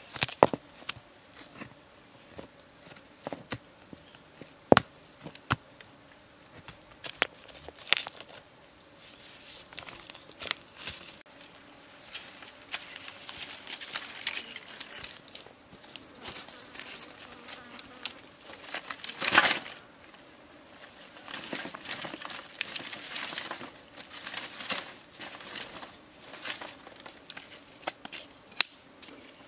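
Scattered sharp knocks and cracks with short bursts of rustling as rocks are shifted and dry leaves, twigs and sticks are trodden on and handled on a rocky forest floor. The loudest is a rustling burst about two-thirds of the way through. A faint, steady insect buzz sits behind it all.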